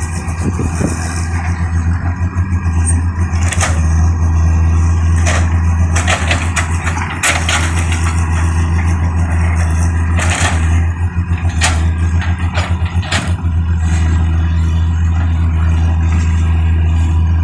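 Tata Hitachi EX110 excavator's diesel engine running with a steady low drone, with scattered short knocks and clanks over it.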